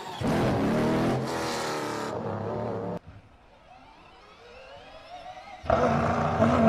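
Cadillac V-LMDh race car's V8 engine at high revs, in edited cuts. A loud note falls in pitch, then a quieter note climbs in pitch after a sudden cut. About five and a half seconds in, a loud, steady high-rev note cuts in.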